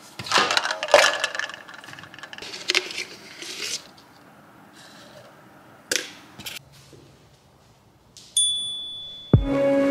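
Small objects being handled with irregular clicks and clinks, then a single bright ding that rings for about a second, with music starting just before the end.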